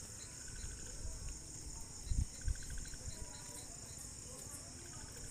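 Insects chirping steadily, with regular short trills. About two seconds in come two dull knocks, as the metal parts of a steering box are handled and its nut is turned by hand.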